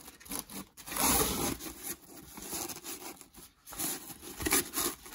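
Stiff 1680D Oxford-cloth divider panel rustling and scraping against the fabric walls of a collapsible trunk organizer as it is pushed into place, in several short bursts.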